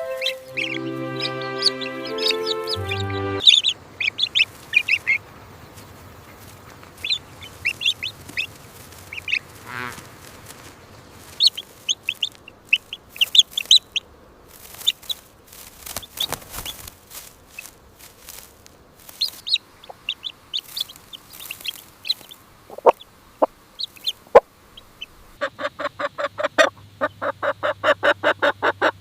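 A few seconds of music, then chickens: short high peeps from chicks and clucking, scattered at first. Near the end comes a fast, even run of calls.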